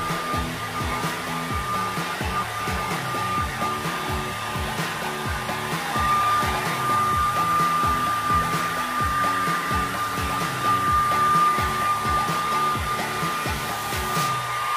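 Handheld hair dryer running steadily with a high whine, drying a dog's wet coat after a bath; the whine fades and comes back as the dryer is moved about. Background music with a steady beat plays underneath.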